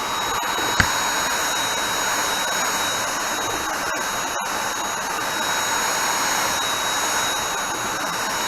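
Vacuum cleaner running steadily, sucking dust out of a computer's memory compartment: a rushing air noise with a thin high whine over it, and a small click about a second in.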